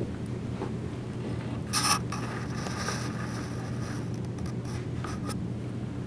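Rustling and scraping sounds over a steady low hum, with a brief louder rustle about two seconds in.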